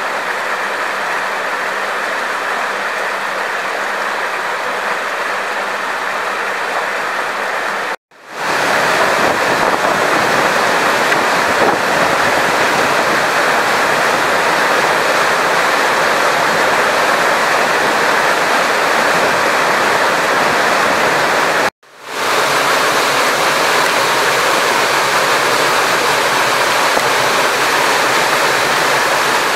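Steady rush of fast-flowing floodwater, dropping out abruptly twice: about eight seconds in and about eight seconds before the end.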